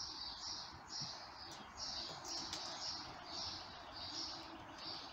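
A steady series of high, scratchy chirps, about two a second, from an unseen calling animal, over a faint steady hiss.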